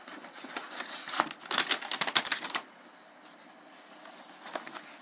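Tissue paper and cardboard box contents rustling and crinkling as a dog and a hand move through them: a dense run of crackles over the first two and a half seconds, then only a few soft rustles.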